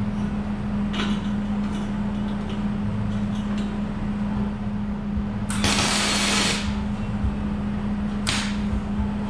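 Electric arc welding tacking a steel grate step in place: one weld burst of about a second, then a brief second tack near the end. A steady low hum runs underneath.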